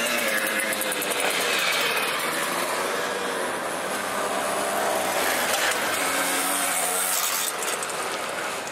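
Several small two-stroke moped engines running as the mopeds ride past one after another, their pitch rising and falling.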